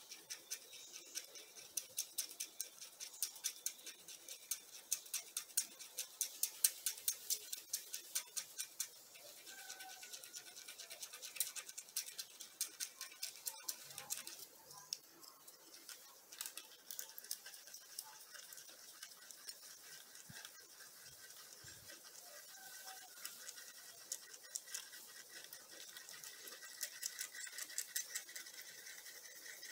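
A small screwdriver stirring two-part epoxy glue in a little plastic cup, its tip scraping and clicking against the cup in quick strokes, about four a second. The strokes thin out in the middle and pick up again near the end.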